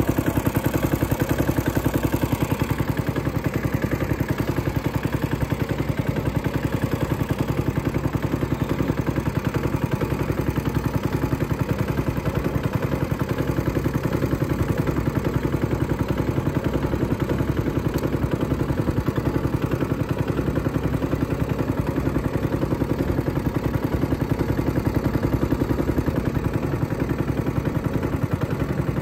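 Small boat engine running steadily at trolling speed, a fast even beat with no change in pitch or level.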